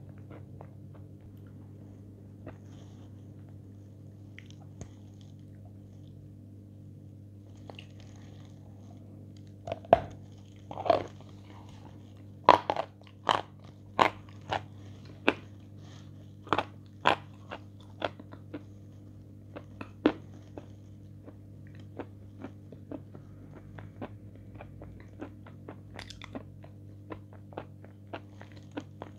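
Close-up mouth sounds of biting and chewing a hard, crumbly food: quiet for the first few seconds, then a run of loud, sharp crunches from about a third of the way in, easing into softer chewing crunches near the end. A steady low electrical hum lies underneath.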